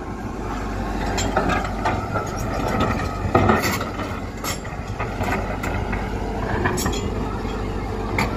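Tata Hitachi Zaxis 120H excavator's diesel engine running steadily while its bucket digs rocky murrum, with repeated knocks and clatter of stones against the bucket.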